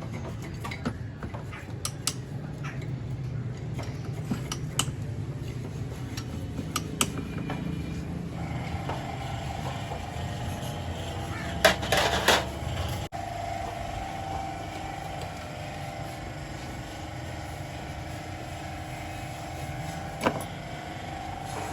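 Scattered metallic clicks and taps of hand tools as a car engine's camshaft bearing caps are unbolted, over a low hum. From about a third of the way in, a steady drone joins, with a loud metallic clatter near the middle and one more sharp click near the end.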